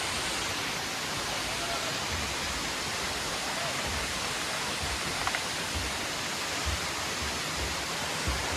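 Steady rush of a tall waterfall pouring onto rocks, with occasional low rumbles.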